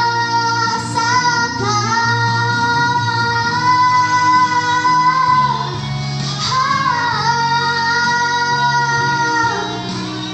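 A female voice sings a Malay-language pop ballad with guitar accompaniment, holding two long notes on the word "rasakan" with a slight waver.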